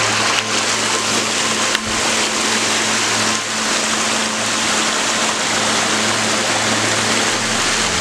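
Forest stream rushing down a small rocky cascade, a steady loud rush of water.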